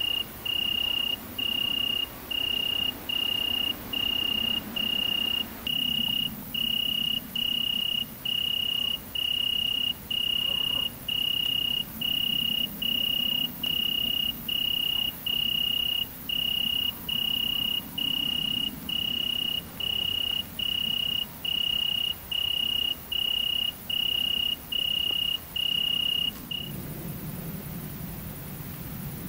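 An insect singing at night: one clear high tone in long, even chirps, a little over one a second, that stops about three seconds before the end, leaving a faint low rumble.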